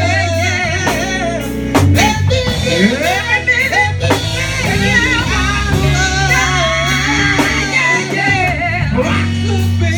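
Gospel singing: a voice wavering in long sung lines over a band with bass, drums and guitar.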